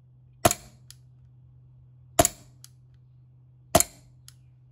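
VFC Glock 42 gas blowback airsoft pistol firing three single shots about a second and a half apart, with no BBs loaded. Each shot is a sharp crack of the gas charge and cycling slide, followed about half a second later by a faint click.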